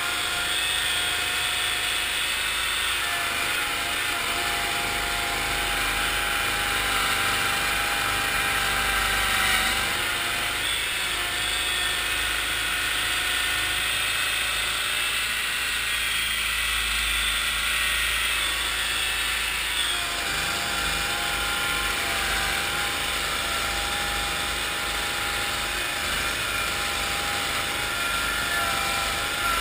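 1974 Cushman Trackster's engine running steadily under way, its pitch wavering a little as the throttle and load change.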